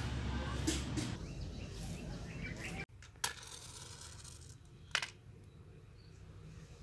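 A low background rumble cuts off suddenly about three seconds in. Then a wooden match is struck on a matchbox, and about two seconds later there is a short sharp knock as the matchbox is set down on the ground.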